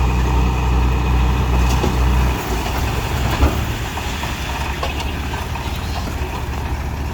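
Diesel engine of a heavy earthmoving machine running with a steady low drone that drops off abruptly about two and a half seconds in. A sharp knock follows about a second later, with a few fainter clanks after it.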